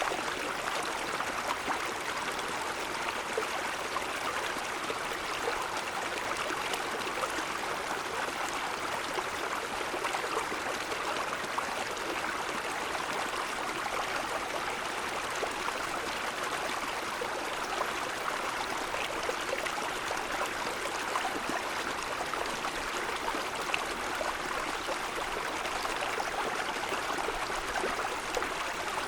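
Mountain stream running over snow-covered stones: a steady rush and babble of flowing water.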